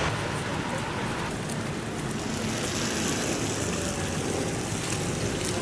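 Steady hiss and rumble of street traffic.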